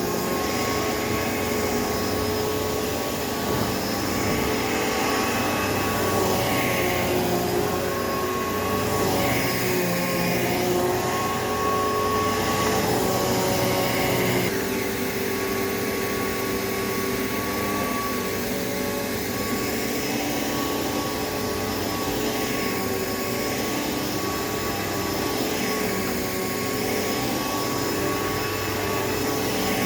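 Hoover Elite Rewind upright vacuum cleaner running, its freshly cleaned motor giving a steady whine that wavers slightly in pitch and shifts about halfway through.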